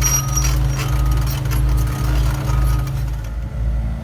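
Heavy diesel construction machinery running steadily with a low, throbbing drone, with a few faint metallic clinks over it.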